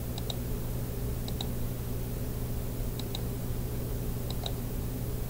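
Computer mouse button clicking: four pairs of quick clicks, spaced unevenly, over a steady low hum.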